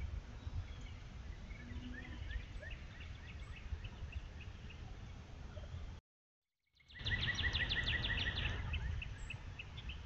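Small songbirds chirping, with one loud, fast trill of repeated short notes, about eight a second, a little after halfway, over a steady low rumble. The sound drops out completely for under a second about six seconds in.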